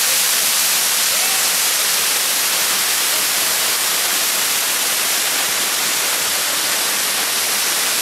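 Waterfall pouring over rock into a pool: a steady, even rushing hiss, heavier in the high end than in the low.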